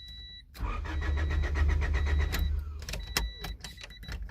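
Honda Del Sol's starter cranking the engine for about two and a half seconds without it catching, then a few sharp clicks. The engine will not fire because it is getting no fuel: the fuel pump is not coming on, which the owner puts down to a failed fuel pump or fuel relay.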